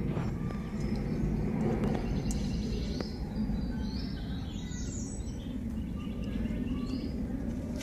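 Outdoor background ambience: a steady low rumble with faint, high bird chirps scattered through it.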